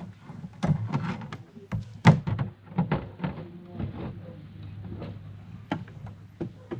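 A run of knocks, taps and clicks of hard objects being handled, the loudest about two seconds in, over a low steady hum.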